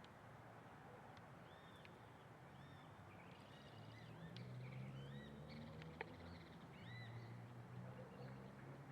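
Faint birdsong: short, arched chirps repeated every second or so, over a low hum that grows louder about halfway through, with one sharp click near the end.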